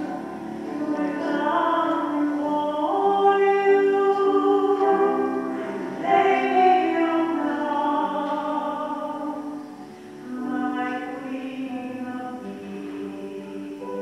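A slow church hymn, sung with instrumental accompaniment on long held notes, dipping briefly about ten seconds in.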